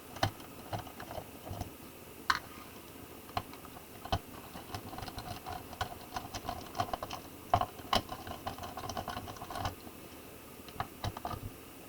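A screwdriver backing small screws out of a laptop's plastic bottom case, with irregular light clicks and ticks of the driver tip and loosened screws against the case.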